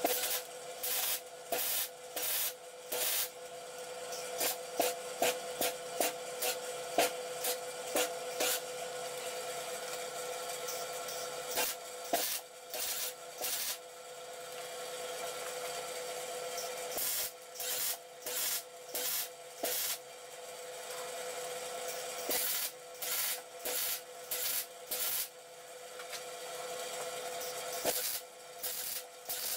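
Arc welding on a steel-tube frame: the arc crackles in clusters of short stop-start bursts, each under a second, with a steady hum underneath.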